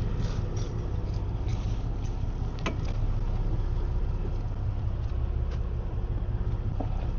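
Fishing boat's engine running steadily, a low hum, with a few light clicks and taps over it and one sharper click about two and a half seconds in.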